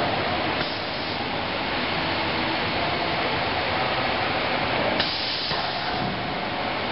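Belt-conveyor loading system on a wooden-window production line running: steady machine noise with a hiss. A short, sharper burst of hiss comes about five seconds in, just after a small click.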